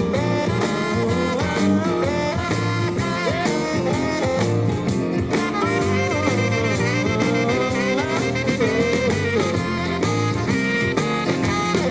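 Instrumental break of a 1970 pop song: a lead melody line glides over full band backing with a steady beat, and there is no singing.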